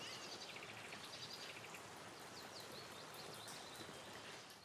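Faint outdoor background noise with small birds chirping: a quick rattling trill about half a second in, and a run of short chirps in the last second and a half.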